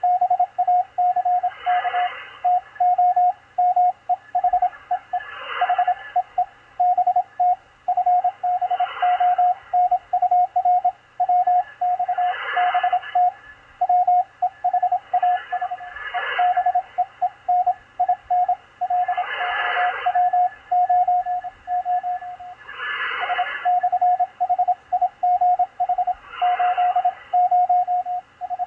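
Morse code (CW) signal on the 20-metre amateur band through a Malachite DSP SDR receiver: a single tone of about 700 Hz keyed rapidly on and off in dots and dashes. A band of hiss swells and fades about every three and a half seconds behind it.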